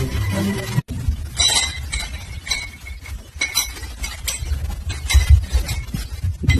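A series of light, irregular clinks and knocks of small hard objects, over a low rumble.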